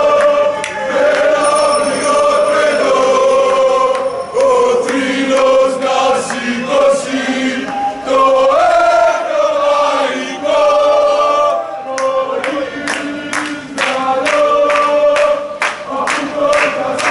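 A crowd of mostly male football supporters singing a terrace chant in unison as they march. About twelve seconds in, rhythmic clapping joins the singing at roughly two claps a second.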